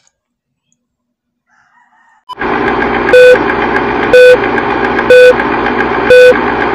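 Film countdown leader sound effect: a loud, steady noise starts a little over two seconds in, with a short beep once a second, four times.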